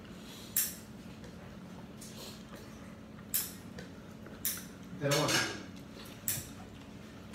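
Fingers and a ring clicking and scraping against a ceramic plate as rice is mixed by hand for eating: several short, sharp clicks at irregular intervals, with a short voice-like mouth sound about five seconds in.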